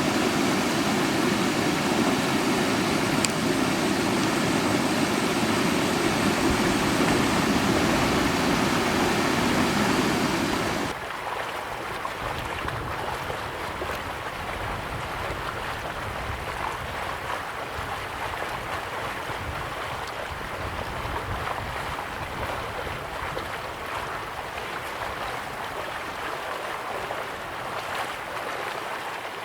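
Steady rush of flowing water. About eleven seconds in it cuts abruptly to a quieter, thinner water sound that carries on evenly.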